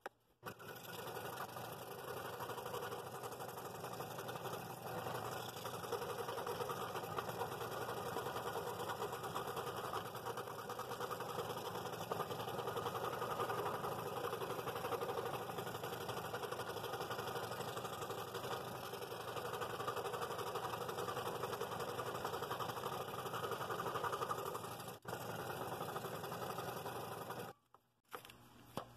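Scroll saw running steadily as its blade cuts the second face of a compound cut through a thick wood blank, stopping suddenly near the end.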